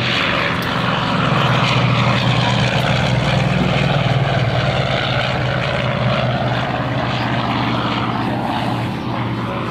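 Radial piston-engine propeller aircraft flying by, a loud steady engine drone that eases slightly near the end.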